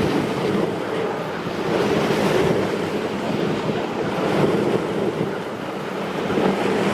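Steady rushing noise of a dog sled gliding over the snow trail, with wind buffeting the microphone.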